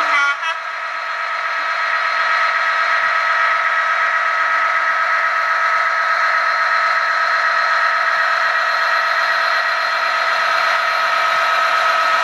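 Sound-equipped HO model locomotive playing a steady droning engine tone with several overtones through its small onboard speaker. The tone swells over the first couple of seconds, then holds even.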